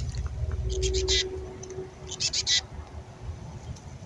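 Female black-capped chickadee giving the raspy, fledgling-like begging call: two quick bursts of three or four harsh notes, about a second in and again a little past two seconds. A low rumble on the microphone sits under the first burst.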